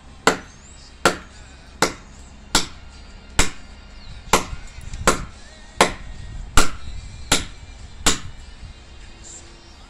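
Machete blade chopping into a wooden branch for firewood: about eleven sharp, evenly spaced strikes, roughly one every three-quarters of a second, stopping shortly before the end.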